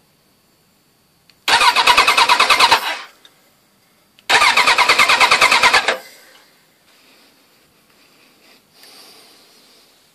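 Suzuki Bandit 1200's 1157 cc air/oil-cooled four-cylinder engine, valve cover off, cranked on the starter in two short bursts of about a second and a half each, with an even rapid pulsing of roughly ten beats a second that stops abruptly each time.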